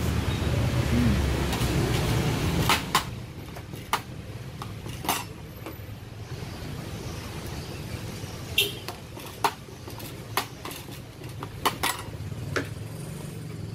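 A metal scraper clinking and tapping against a steel tray and utensils while sticky rice dough is cut and portioned: about a dozen sharp, irregularly spaced clicks. Under them runs a low steady rumble that drops away about three seconds in.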